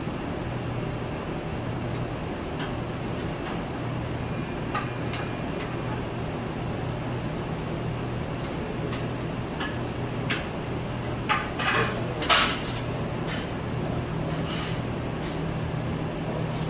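Scattered clinks and knocks of metal platters and utensils being handled, with a short burst of louder ringing clatter about two-thirds of the way through, over a steady kitchen machine hum.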